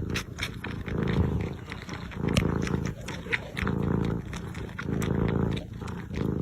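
A pet's low rumble in time with its breathing, about one pulse a second.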